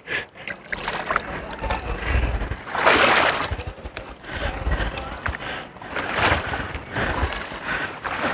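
Seawater splashing and sloshing as people wade through it, with surges of surf washing through about three seconds in and again near six seconds.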